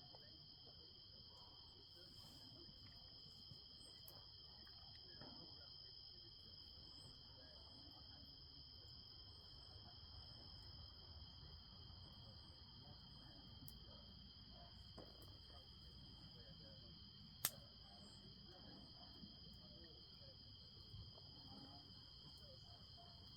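Faint, continuous high-pitched trilling of night insects, with soft crackling from a wood campfire and one sharp pop from the fire about seventeen seconds in.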